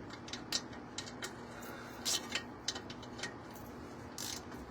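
Irregular sharp metallic clicks from a ratcheting gear wrench backing out a loosened front brake caliper bolt, with a short scrape about four seconds in. A faint steady hum runs underneath.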